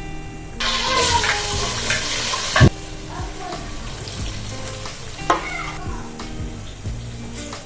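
Food sizzling in hot oil in a cooking pot, loud for about two seconds shortly after the start and then quieter, with a sharp knock of a utensil against the pot and a second knock a few seconds later. Soft background music runs under it.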